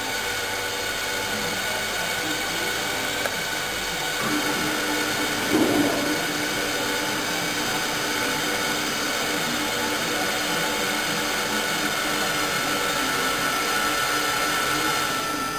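AC servo motors of a CNC-converted Optimum BF 30 milling machine driving the table along its axis: a steady whine that changes in tone about four seconds in, with a brief louder rise near six seconds.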